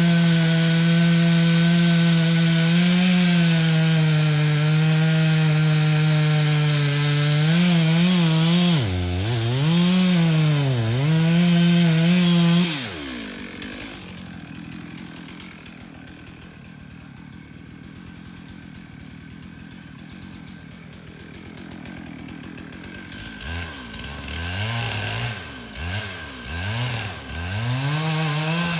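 Two-stroke chainsaw running flat out in a cut, its pitch dipping and recovering a few times as it bogs under load. About halfway in it drops suddenly back to idle, and near the end the throttle is blipped repeatedly and it revs back up.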